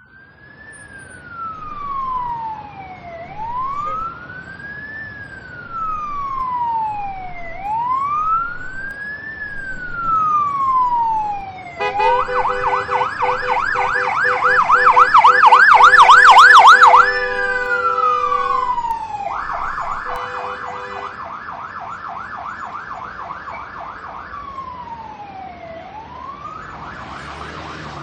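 Ambulance siren pushing through traffic: slow rising-and-falling wails about four seconds apart, then a switch to a fast yelp of several sweeps a second with a low steady blare sounding under it twice. It grows louder to a peak about two-thirds of the way through, then eases off, alternating yelp and single wails.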